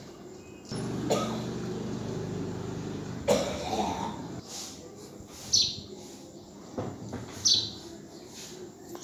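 A low steady hum starts suddenly and runs for about two and a half seconds, then breaks off with a sharp, cough-like sound. After that, short high bird-like chirps come about every two seconds.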